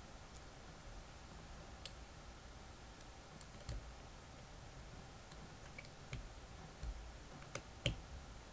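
Faint, scattered small clicks and taps of a Snap-on TLL72 ratchet's metal parts being handled and fitted back together, a few sharper clicks near the end.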